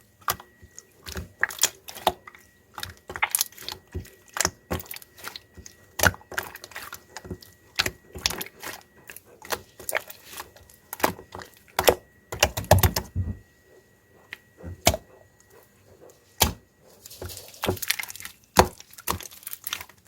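Mixed slime being squeezed and pressed by hand, making an irregular run of sharp clicks and pops, with a longer, lower squelch about twelve seconds in and a denser crackle near the end.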